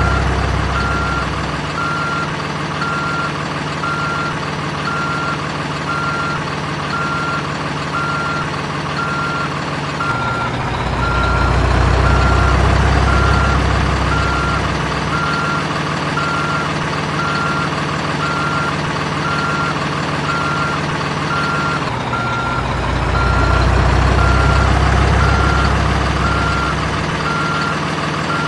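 Sound effects of an RC toy excavator: a steady, evenly repeating reversing beep over a machine-engine rumble that swells twice, about ten seconds in and again near twenty-two seconds.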